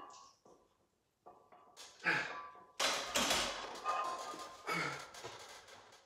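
Loaded barbell set back down on the uprights of a home weight bench with a sudden loud thunk and rattle about three seconds in, among the lifter's heavy breaths.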